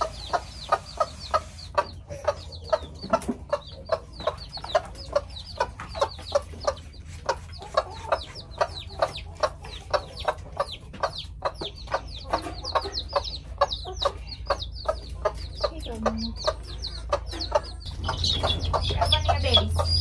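A mother hen clucking steadily, about three short clucks a second, while her chicks peep high over it. The peeping grows busier and louder near the end.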